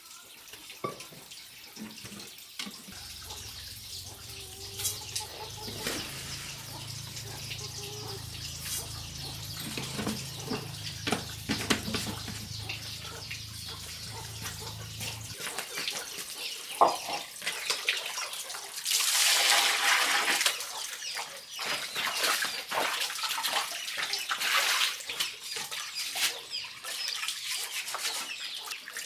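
Water splashing and trickling, with scattered knocks and clicks of handling, and a longer, louder rush of water about two-thirds of the way through.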